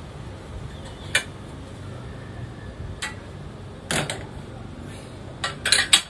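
Adjustable dumbbells being set heavier and lifted: sharp metal clicks and clinks of the plates and selector, one about a second in, another near three seconds, a double clank near four seconds and a quick cluster near the end. A low wind rumble on the microphone runs underneath.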